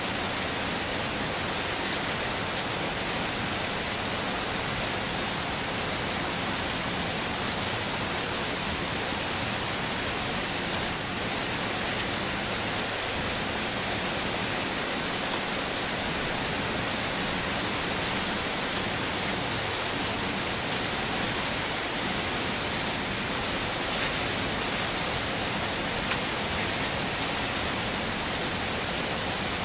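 Heavy rain falling steadily, an even hiss, with a brief dip in the high end about every twelve seconds.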